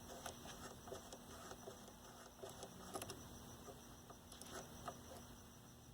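Faint, scattered small clicks and scrapes of hand work on a vintage TV chassis, as the vertical-adjustment potentiometers are cleaned and turned.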